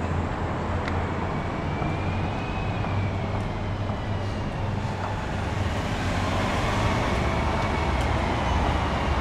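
City bus approaching along the busway, its engine running with a steady low rumble and a faint whine that rises and falls in pitch, growing a little louder in the second half.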